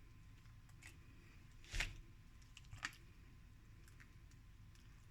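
Faint room tone with three short knocks and clicks, the loudest, a dull thud, about two seconds in.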